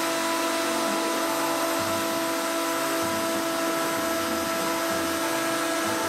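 Home-made CNC machine cutting a PVC wind-generator blade: its motor runs with a steady whine and hiss, over low motor tones that shift in pitch every half second or so as the machine moves.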